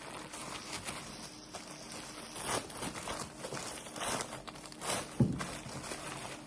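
Several short rustles of handling, with a soft thump about five seconds in.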